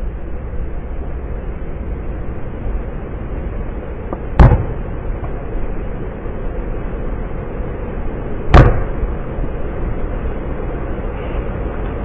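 Wind buffeting the microphone in a steady rush, with two loud thuds about four seconds apart from a basketball bouncing on a concrete driveway. The sound is played back in slow motion.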